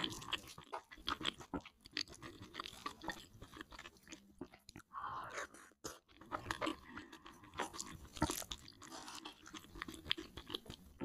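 Close-miked chewing of creamy, sticky noodles with a spicy topping: wet smacking mouth sounds with many small sharp clicks, unbroken by speech.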